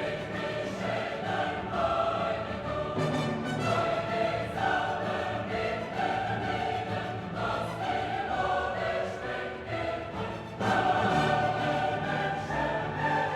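Background music: a choir singing held notes, growing louder about ten seconds in.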